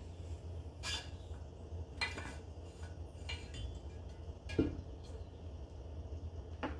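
An insulated metal bottle being handled: a few short metallic clinks as its lid is worked off, and a louder knock about halfway through as it is set down on a wooden counter, over a steady low hum.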